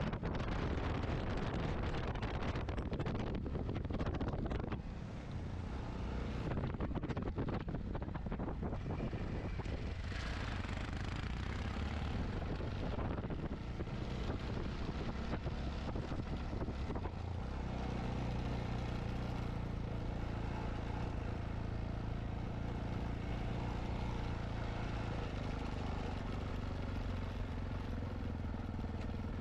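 Yamaha XT660Z Ténéré's single-cylinder engine running under way, with wind buffeting the microphone. A steady low engine drone becomes more distinct in the second half.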